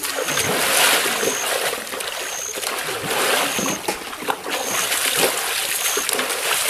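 River water splashing as a man wading waist-deep throws and scoops water over himself with his hands. A short high chirp repeats about once a second behind it.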